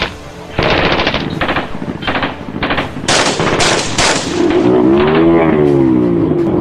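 Rapid bursts of gunfire, a quick run of volleys with short gaps between them. In the last two seconds a droning sound with several pitches rises and then falls, as the firing dies away.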